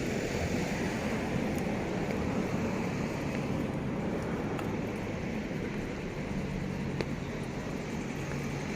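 Steady street-traffic noise from passing vehicles, with a low engine hum coming in for the last few seconds.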